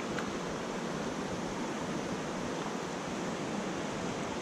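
Steady rushing of a rocky mountain trout stream as it runs over rocks and riffles.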